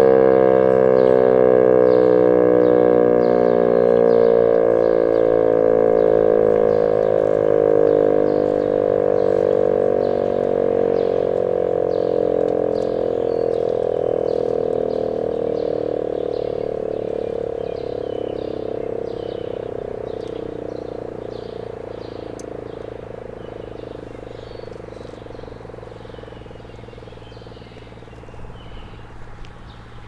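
E.D. Bullard 3H27 warning siren winding down at the end of its alert signal, its tone slowly falling in pitch and fading away over about twenty seconds. Frogs call steadily underneath, about two calls a second, coming through more clearly as the siren dies away.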